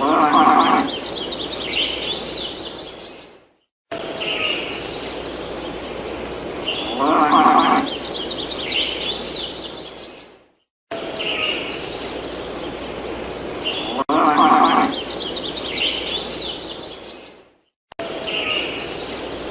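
A looped farmyard sound effect that plays three times: a cow moos for about a second, then birds chirp over a rustling outdoor background, and each pass cuts off into a brief silence.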